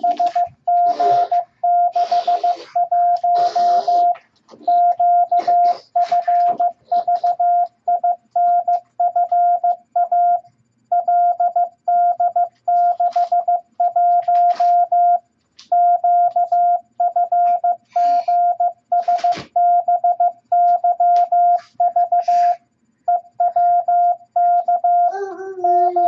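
MFJ-414 Classroom Morse Tutor sending random letters and numbers in Morse code at 15 words per minute: a steady beep tone keyed on and off in short dits and longer dahs, with brief pauses between character groups. A few short bursts of hiss or rustle sound behind it.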